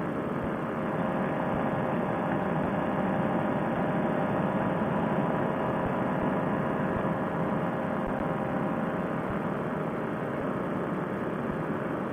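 Fresh Breeze Monster single-cylinder two-stroke paramotor engine running steadily at cruise power in flight, a constant drone over a haze of wind noise.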